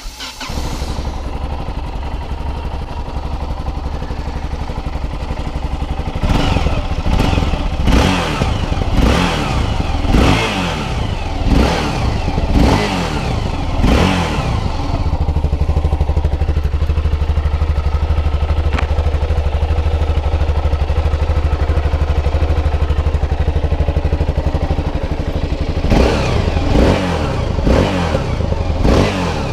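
2012 Yamaha XT660R's single-cylinder four-stroke engine running through its stock exhausts. It idles, is blipped about seven times in quick succession, settles back to a steady idle, and is revved a few more times near the end.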